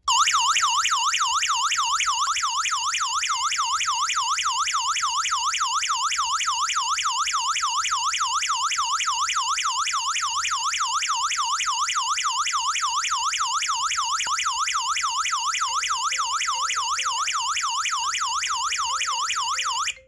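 HOMSECUR LD02-4G alarm panel's built-in siren sounding an intrusion alarm, set off by a door sensor opening while the system is armed. It is loud and shrill, with a fast up-and-down warble of several sweeps a second. It starts suddenly and cuts off suddenly at the end when the system is disarmed.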